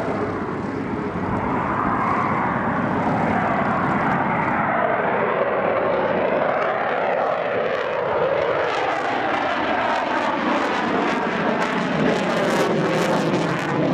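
Eurofighter Typhoon's two EJ200 turbofan engines at high thrust as the jet climbs out: a loud, steady jet roar whose pitch falls slowly over several seconds, turning rough and crackly in the last few seconds.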